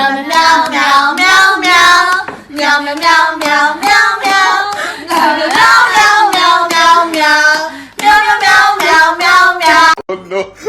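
A high-pitched voice singing or howling in drawn-out, wavering notes, in four phrases with short breaks between them.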